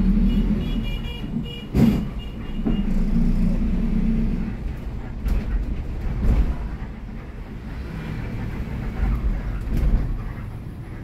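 City bus heard from inside while driving: a steady low engine and road rumble with a humming drone for the first few seconds, and a few sharp knocks and rattles about two, five, six and ten seconds in.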